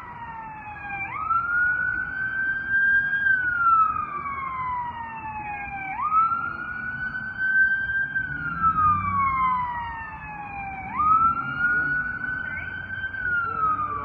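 Fire department vehicle's siren on a slow wail: the pitch jumps up quickly, holds briefly, then slides slowly down, repeating about every five seconds, three times.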